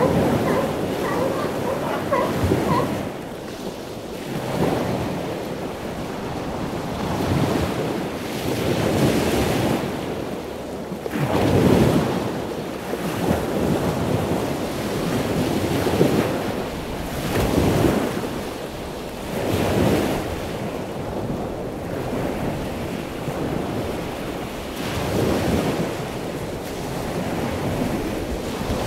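Ocean surf breaking on the beach, the rush swelling and falling every two to three seconds, with wind buffeting the microphone. In the first couple of seconds a northern elephant seal gives a short call.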